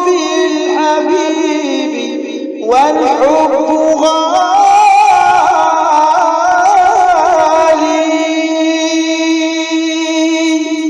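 Unaccompanied Arabic devotional chant: voices singing an ornamented melody over a steady low held drone note. A voice sweeps up into a new phrase about three seconds in, and the singing settles into a long held note near the end.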